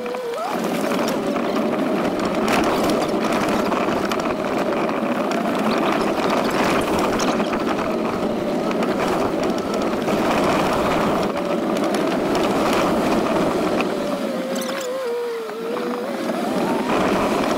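A vehicle engine running at a fairly steady pitch under a constant rush of noise. The pitch and level sag briefly about 15 seconds in, then climb back near the end.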